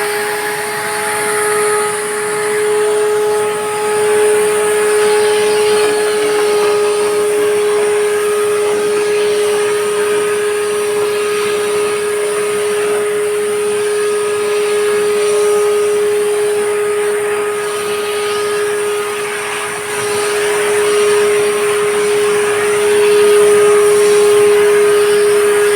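Ural PNV-600 vacuum cleaner running steadily at full speed after switch-on: a strong motor whine with rushing air, holding one pitch, as the 1989 Soviet machine runs in full working order.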